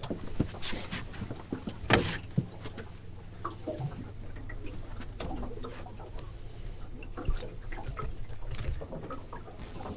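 Scattered knocks and clunks of gear being handled in a boat, the loudest about two seconds in. Behind them run a steady high-pitched insect drone and a low hum.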